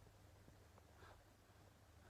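Near silence: a steady low hum of room tone, with one faint soft rustle about a second in.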